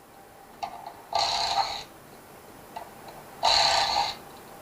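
Cordless power screwdriver running in two short bursts of under a second each, backing out screws while a washer-dryer's drying unit is taken apart.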